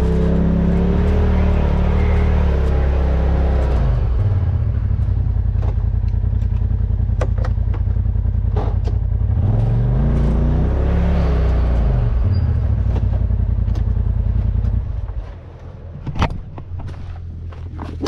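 Off-road vehicle engine working under load, its pitch rising and falling and climbing sharply as it revs about ten seconds in. About fifteen seconds in the engine drops to a lower, quieter level, with a few sharp knocks near the end.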